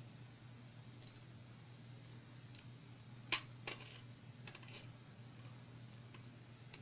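Small metal clicks and taps from handling the pins, springs and tools while repinning an American 1100 padlock core, a few light ones scattered through and two sharper ones about three and a half seconds in.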